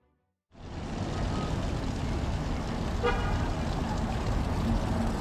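Street traffic noise with a steady low rumble, starting about half a second in, and one brief horn toot about three seconds in.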